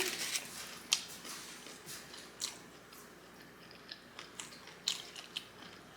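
A person chewing food close to the microphone: irregular soft crunches and wet mouth clicks, a few sharper ones standing out.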